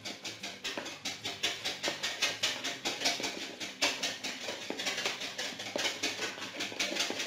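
Utensil stirring dry pancake mix (flour, sugar, salt, baking powder) in a plastic mixing bowl by hand. It makes quick, even scraping strokes, about five a second.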